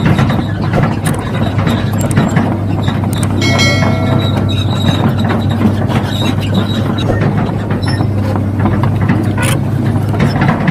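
Radio-controlled model excavator's motor and gears running with a steady low hum, with scattered clicks and knocks from the model working.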